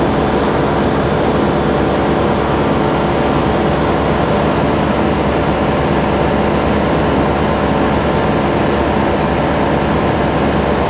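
Light aircraft's piston engine and propeller heard from inside the cabin in cruising flight: a loud, steady drone with a hiss of rushing air.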